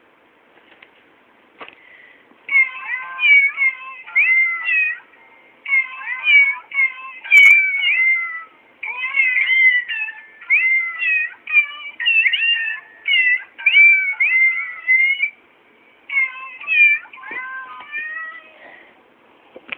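Musical greeting card's sound chip playing a tune made of recorded cat meows: a quick, rhythmic run of short pitched meows, with a brief break about three-quarters of the way through.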